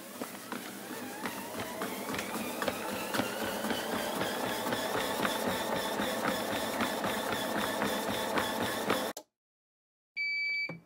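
Film-projector sound effect: a whirring that rises in pitch over the first few seconds and then holds steady, over fast, even clicking. It cuts off abruptly about nine seconds in, and after a second of silence a single high countdown beep sounds near the end.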